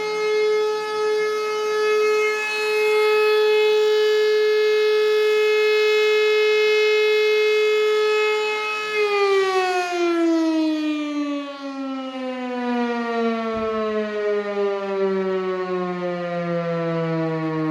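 Type E57 electric motor siren howling at a steady full-speed pitch for about nine seconds. Its power then cuts and the rotor winds down, the howl falling slowly in pitch to the end. The run-down shows the newly fitted contactor releasing as it should, where the old one had stuck and kept the siren running.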